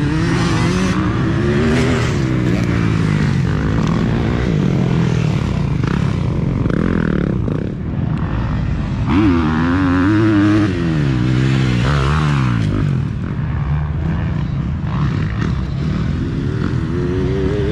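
Several dirt bike engines racing around a motocross course, revving up and falling back again and again as the riders work through the gears. The loudest run of rising and falling revs comes about nine to thirteen seconds in.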